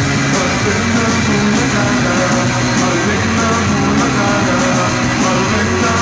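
Live rock band playing loud: electric guitar over drums keeping a steady beat.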